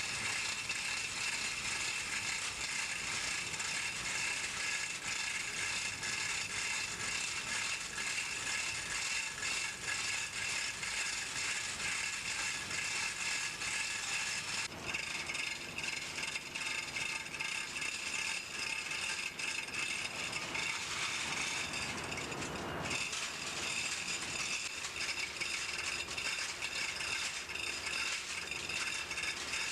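Steady mechanical rattling and clatter of engine-room machinery, a dense run of fine ticks with a few steady tones on top, changing briefly about halfway through and again later on.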